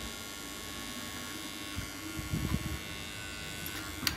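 Transformer soldering gun buzzing steadily with mains hum while it is held on a drill circuit board's solder joints, with a few soft knocks and a sharp click near the end.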